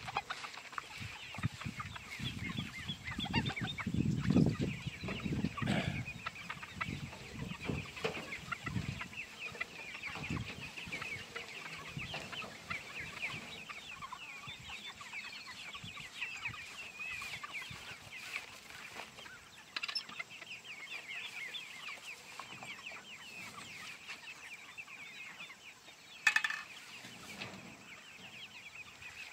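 Chickens clucking, with a low scraping rumble over the first ten seconds or so, loudest about four seconds in, as the movable chicken pen is dragged across the grass, and one sharp knock near the end.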